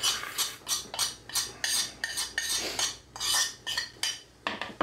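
A metal spoon scraping a plate and stirring coleslaw in a glass bowl: a steady run of scrapes and clinks, about three a second.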